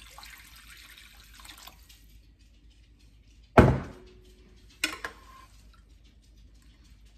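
Water poured from a glass jar into a slow cooker of soaked pinto beans and ham, splashing for about two seconds. A little over three seconds in comes a single loud, hard knock with a short ring, and a couple of lighter clinks about a second later.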